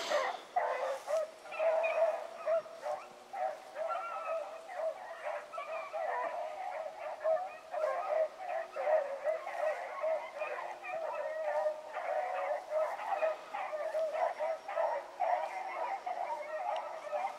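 A pack of rabbit hounds baying in chorus while running a rabbit, many voices overlapping without a break.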